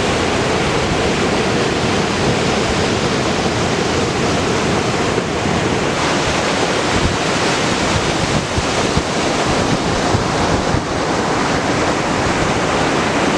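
Ocean surf breaking in a continuous rush, with wind buffeting the microphone in a few low thumps partway through.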